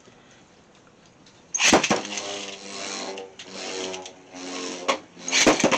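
Beyblade X spinning tops launched into a plastic stadium about a second and a half in, then spinning with a whirring hum and clashing against each other, with more sharp hits near the end.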